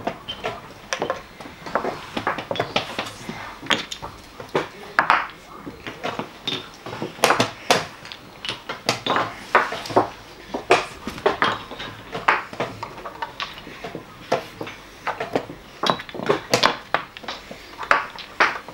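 Chess pieces clacking down on boards and chess clock buttons being pressed at several tables: an irregular run of sharp taps, several a second at times.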